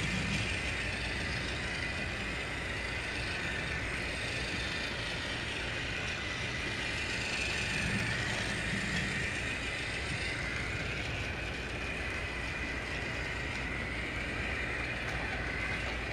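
Small electric motor of a battery-powered TrackMaster toy engine whirring steadily as it pulls a wagon along plastic track and up a spiral ramp.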